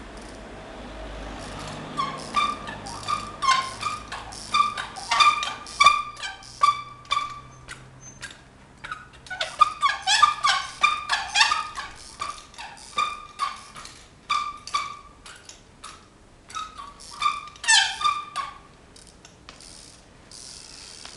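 Trials bike being hopped and pivoted on concrete: runs of short, sharp squeaks and knocks in quick irregular bursts, with pauses about eight and fifteen seconds in, stopping a couple of seconds before the end.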